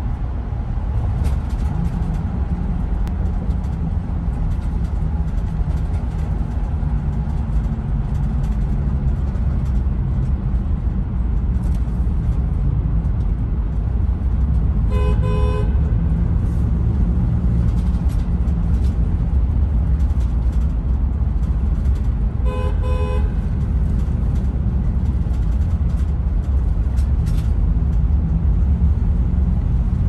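Steady low rumble of traffic and tyres in a road tunnel. A car horn sounds twice, two short blasts about seven seconds apart, each about a second long and sounding two notes at once.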